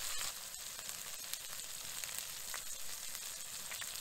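Two ribeye steaks sizzling in bacon grease in a cast-iron skillet: a steady frying hiss with a few faint ticks.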